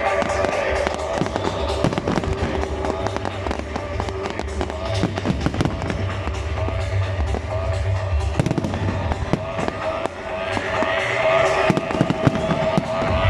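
Fireworks going off: rapid crackling and bangs, with rising whistles about ten seconds in, over loud music played along with the display.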